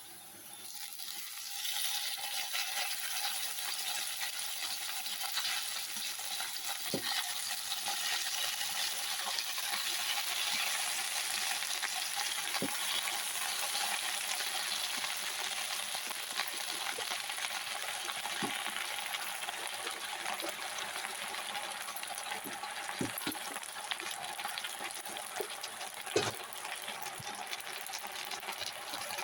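Food sizzling in a hot pan while being stirred, a steady frying hiss with scattered sharp clicks of the spoon against the pan.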